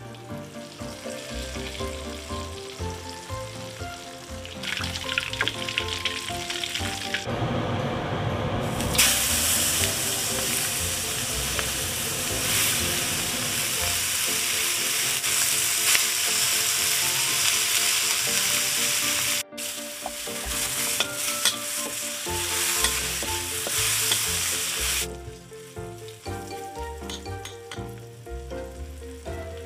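Oil sizzling in a wok as battered mantis shrimp deep-fry and then dried chilies and ginger fry. The sizzle is loud through the middle, cuts briefly, and drops away a few seconds before the end. Background music plays throughout.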